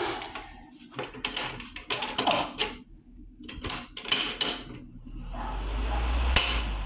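Clicks and knocks of a plastic table fan being handled, a string of separate taps over the first five seconds, then a rushing noise with a low rumble that swells and fades near the end.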